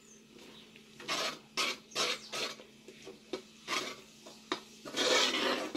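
A utensil stirring and scraping thick, flour-thickened chicken broth (coxinha dough) in a pan, in several separate scraping strokes about half a second apart, with a longer scrape near the end.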